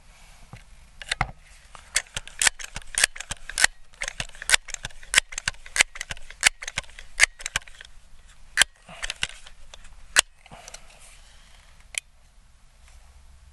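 Crosman 1322 .22 multi-pump pneumatic pellet pistol being pumped up to ten pumps: a quick run of sharp clicks and clacks from the pump lever opening and closing, about two a second, thinning out toward the end with a last single click.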